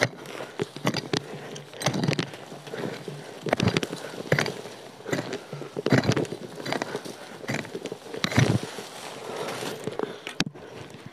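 A long-handled, metal-tipped digging tool striking and scraping into root-filled soil in repeated, irregular strokes, with crunching and thuds of earth and roots being broken loose.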